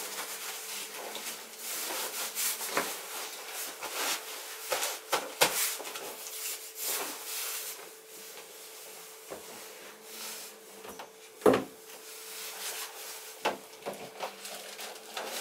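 Fabric rustling and rubbing as gear is stuffed and pressed down into a canvas rucksack, with scattered light knocks and one sharp thump about eleven and a half seconds in.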